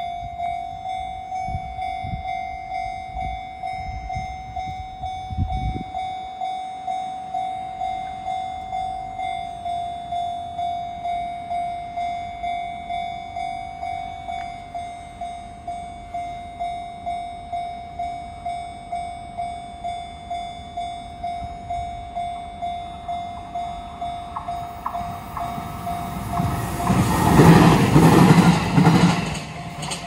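Japanese level-crossing warning bell ringing with its barriers down: a steady electronic ding repeating a little under twice a second. Near the end a train passes over the crossing, and its rush of wheel and body noise swells to the loudest point before dying away, while the bell keeps ringing.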